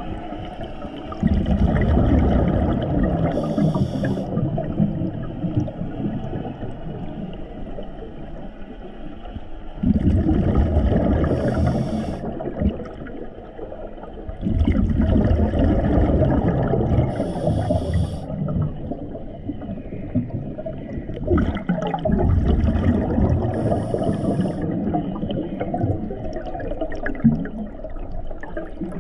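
A scuba diver breathing through a regulator underwater: each breath is a rush of bubbling noise with a short high hiss in it. There are four breaths, about five to nine seconds apart.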